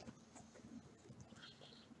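Near silence, with a few faint taps and a light rustle as hands straighten a stack of sealed trading-card boxes on a table.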